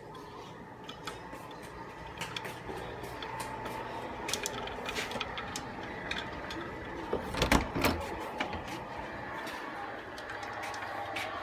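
Handling noise from a hand-held phone being carried: scattered clicks, knocks and rubbing, with one louder knock about seven and a half seconds in.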